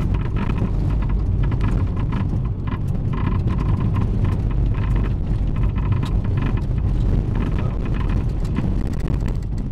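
Toyota Celica All-Trac driving, heard from inside the cabin: a steady low road and drivetrain rumble with repeated, irregular clunks from underneath the car. The owners have not found the cause of the clunking; replacing the front axle did not cure it.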